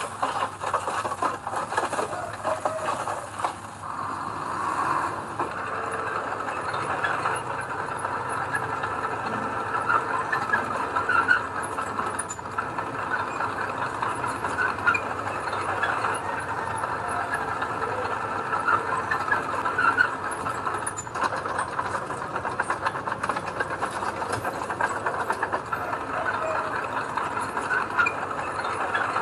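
Heavy earthmoving machinery running steadily, a diesel engine with scattered metallic squeaks and clatter over it.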